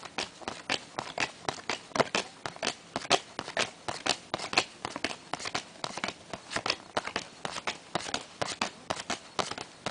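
Trading cards being flipped one by one off a stack in the hand, a quick papery snap about three or four times a second.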